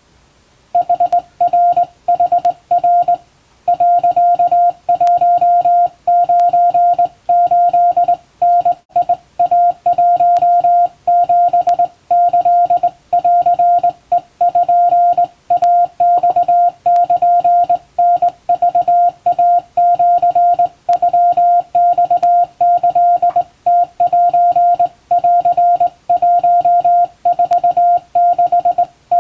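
Japanese wabun Morse code sent by hand on a straight key: a single steady beep keyed on and off in dots and dashes, starting about a second in.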